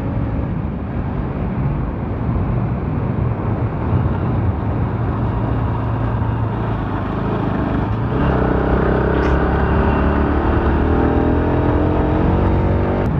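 Bajaj Pulsar RS200 motorcycle's single-cylinder engine running under way, over a steady rush of road and wind noise. About eight seconds in, the engine note climbs slowly as the bike accelerates.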